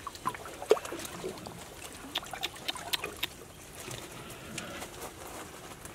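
Shallow pond water splashing and trickling as a cut-open plastic jug is worked through it, with many irregular sharp splashes, the loudest less than a second in.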